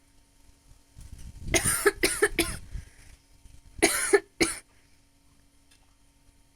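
A woman coughing in two short fits: three quick coughs, then two more after a brief pause.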